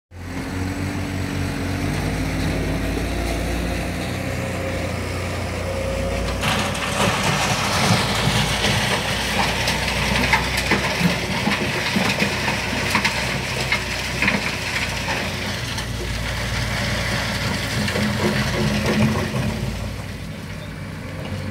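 Heavy diesel machinery running, its engine note rising over the first few seconds. From about six seconds in, a loud rough crunching and rattling with many small clicks joins the low engine hum and carries on until near the end.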